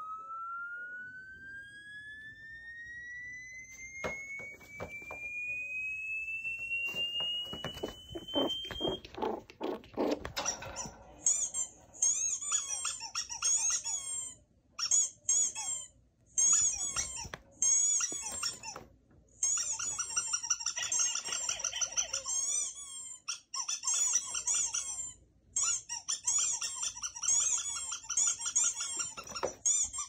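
Played-back sound effects meant to make a dog tilt its head. First comes an electronic tone that slides slowly upward in pitch for about nine seconds. Then comes a rapid run of high, squeaky chirps, broken by short gaps.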